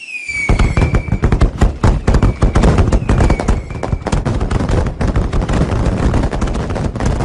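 Fireworks: a whistle falling in pitch at the start, then from about half a second in a dense, continuous barrage of bangs and crackling. A second falling whistle comes about three seconds in.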